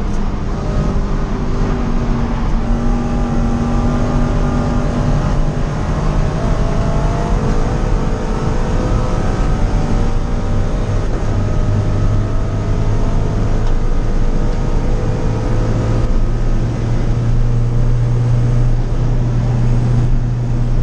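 Supercharged Subaru BRZ's flat-four engine working hard on track, heard from inside the cabin. Its pitch rises and falls as the car accelerates and slows through the lap.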